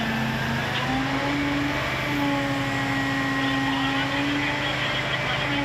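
Fire truck's diesel engine running steadily, a constant droning hum with a whine above it that shifts in pitch a little now and then.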